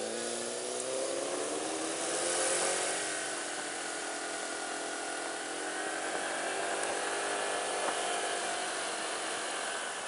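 Honda PCX 150 scooter's single-cylinder engine heard from the rider's seat, rising in pitch over the first few seconds as it accelerates, then running steadily with wind and road noise.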